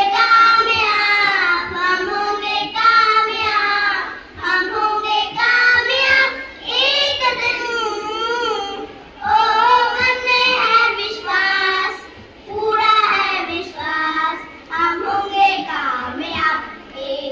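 A group of young children singing together, in sung phrases with short breaks between them.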